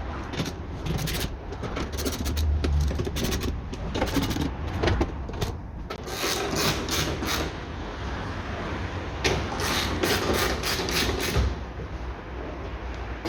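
Hand tools working a small screw on a car door's window regulator: runs of quick sharp clicks, two bunches of them, with metal scraping and rubbing in between.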